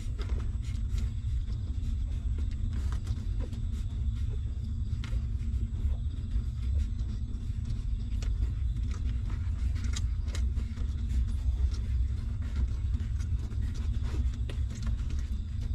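Newborn puppies suckling at their nursing mother: many small irregular clicks over a steady low rumble.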